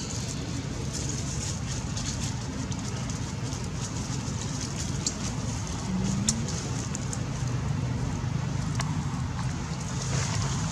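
Scattered crackles of dry leaves as monkeys move and handle plants over a leaf-littered floor, over a steady low background rumble. A brief low rising sound about six seconds in.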